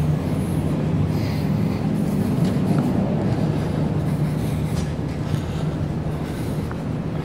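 Steady low mechanical hum from an unseen machine, holding one pitch throughout, over the general noise of a city street.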